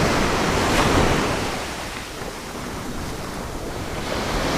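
Ocean surf washing onto a beach, a steady rush of waves that eases in the middle and builds again near the end, with wind buffeting the microphone.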